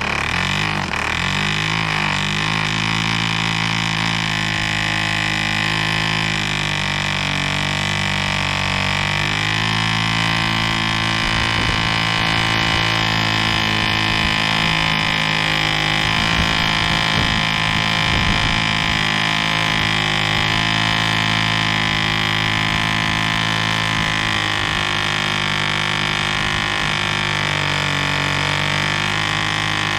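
1947 Drone 4.85 cc diesel model airplane engine running steadily on a 14 x 6 propeller, a loud continuous buzzing tone whose pitch wavers briefly a couple of times.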